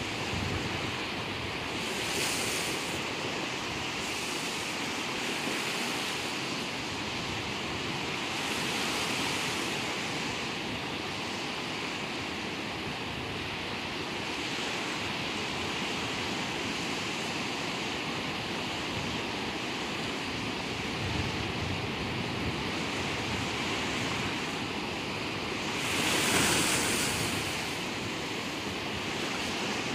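Sea surf breaking and washing over rocks and shallows, a steady hiss that swells every few seconds as each wave comes in, with one louder wave breaking near the end.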